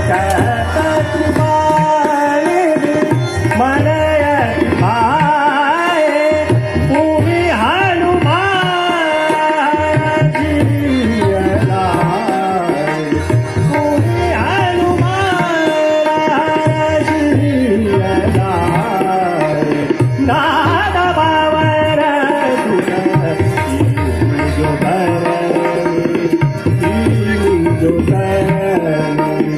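Hindustani classical vocal in raga Hamsadhwani: a man sings gliding, ornamented phrases over a held harmonium accompaniment and steady tabla strokes.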